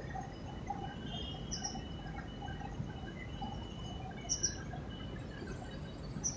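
Steady distant hum of city traffic heard from high above the streets, with a few short high chirps: one about a second and a half in, a quick pair about four and a half seconds in, and one more at the end.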